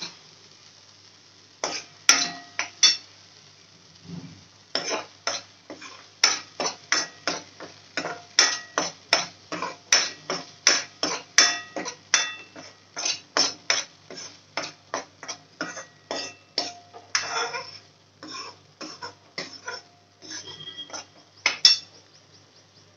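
Steel spoon scraping and clinking against a metal kadhai as a thick masala paste is stirred and sautéed, about two strokes a second, with a short pause a few seconds in.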